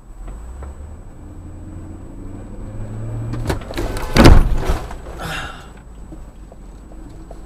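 Car collision heard from inside the dashcam car's cabin: its engine pulls away from a standstill with a rising tone, then a sharp knock about three and a half seconds in and a loud crash just after, followed by a shorter crunch about a second later.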